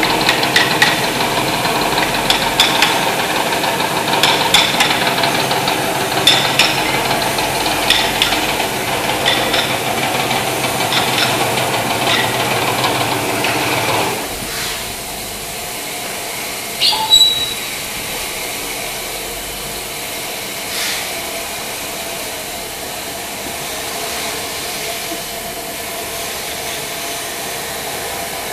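Sharp hammer taps on a wooden chair frame, every second or two, over the loud steady drone of running woodworking machinery. About halfway the drone gives way to a quieter, even factory background, with one brief ringing clink a few seconds later.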